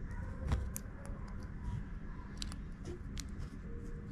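Light, scattered clicks of needle-nose jewelry pliers working a small metal jump ring and the shells hung on it, over a faint steady hum.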